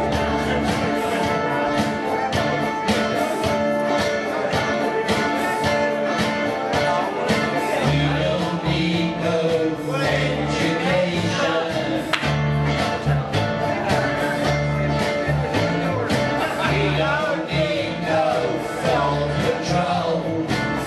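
Live band music: an electric bass playing a steady run of low notes and a Stratocaster electric guitar, with a man singing over them.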